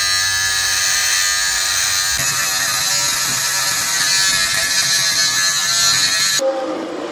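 Cordless electric beard trimmer buzzing steadily as it trims a beard; it cuts off near the end.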